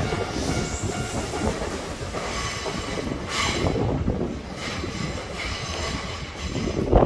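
Kintetsu "Aoniyoshi" limited express train running along the track, a continuous rumble of wheels on rail with thin high steady tones over it. It grows louder near the end.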